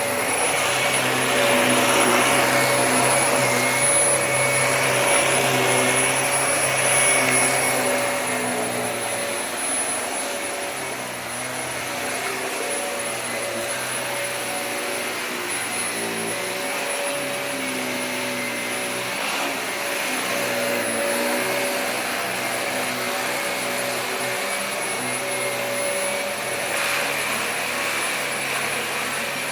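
Vacuum cleaner running continuously with a steady high motor whine, louder for the first eight seconds or so and then a little quieter.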